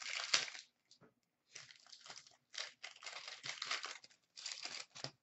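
A hockey card pack wrapper being torn open and crinkled by hand, in several rough bursts of tearing and rustling.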